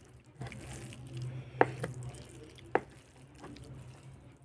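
Wet eating sounds: fingers squishing and scooping saucy rice and meat on a plate, and mouth noises, with two sharp smacks about a second apart near the middle, over a steady low hum.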